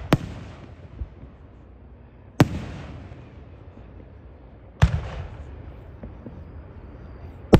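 Aerial firework shells bursting: four sharp bangs about two and a half seconds apart, each followed by a rumble that fades, with a smaller pop about a second in.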